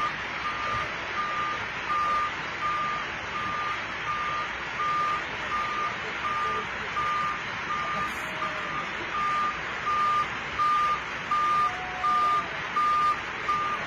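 Dump truck's reversing alarm beeping in a steady single-tone pattern, about three beeps every two seconds, growing louder in the second half, over a steady rushing noise.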